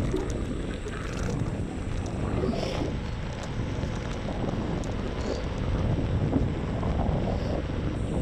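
Wind buffeting the microphone and road rumble from riding a Xiaomi M365 electric scooter, a steady low rumble with scattered small rattles.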